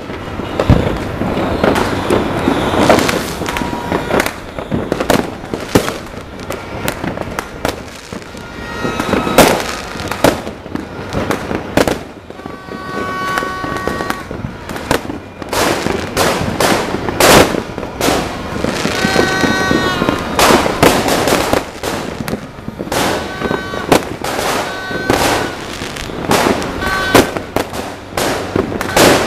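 Fireworks and firecrackers going off without let-up: a dense run of sharp bangs and crackles from aerial shells and ground firecrackers. Short steady high tones sound several times over the bangs.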